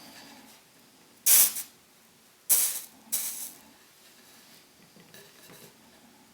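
Soldering iron touching leader wire wet with orthophosphoric acid flux: three short hissing sizzles, the first about a second in and two more close together a little later.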